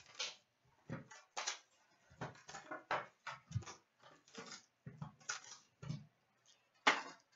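Hands opening a cardboard box of 2017/18 SPx hockey card packs, with irregular short rustles, crinkles and taps as the lid is opened and the foil packs are pulled out.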